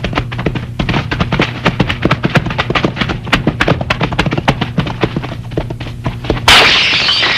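Horses' hooves thudding on the ground in quick, irregular beats. Near the end the sound cuts abruptly to a louder, hissing clatter.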